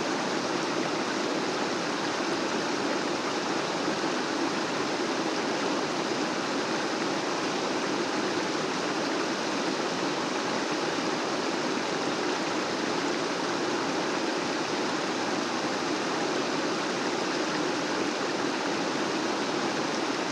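Rushing water running high after heavy rain: a steady, even rush with no let-up.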